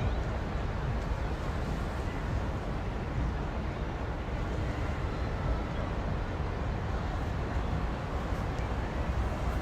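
Wind buffeting an outdoor microphone: a steady low rumble with a hiss above it, and no horn or other distinct sound standing out.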